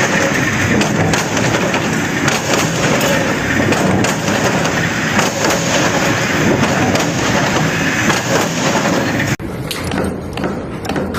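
Loud, dense clattering and knocking of factory machinery. It cuts abruptly about nine seconds in to a quieter, sparser clatter.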